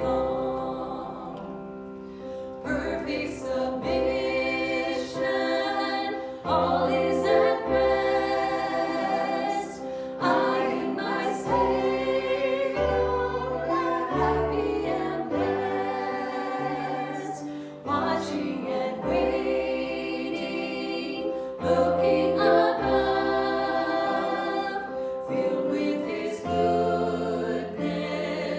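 Choral worship music: voices singing together in sustained chords over a bass line that steps from chord to chord.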